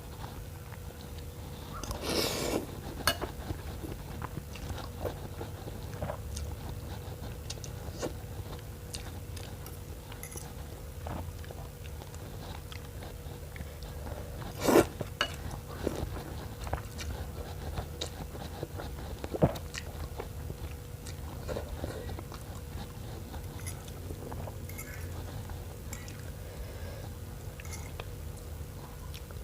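Close-up eating sounds: a person chewing and biting through spicy noodle soup with bones, with scattered sharp clicks and knocks, the loudest about halfway through, over a steady low hum.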